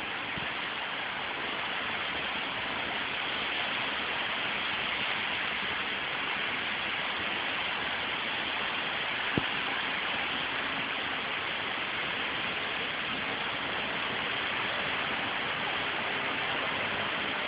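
Steady hiss, with one short faint click about nine seconds in.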